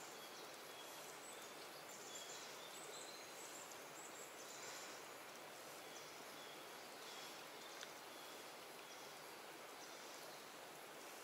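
Faint outdoor background: a steady low hiss with brief, faint high chirps every second or so.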